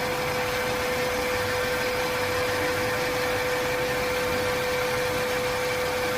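Car engine idling steadily, with a constant mid-pitched tone running over it.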